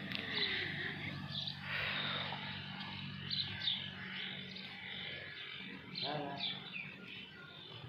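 Many small birds chirping, some calls sliding down in pitch, over a low steady hum that fades out about five seconds in.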